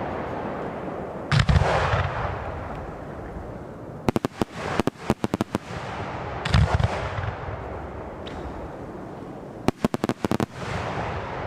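Fireworks display: two heavy aerial shell booms, about a second and a half in and again about six and a half seconds in, with rapid volleys of sharp cracks between them and near the end, over a steady noise.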